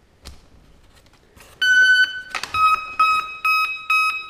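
The RC plane's electronic speed controller beeping after its flight battery is plugged in: one long electronic tone, a sharp click of the connector, then short beeps repeating about twice a second. The transmitter is still set to a different model, so the plane is not getting a signal from it.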